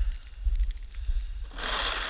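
Snow shovel scraping and crunching through snow, starting about one and a half seconds in, over low wind buffeting on the microphone.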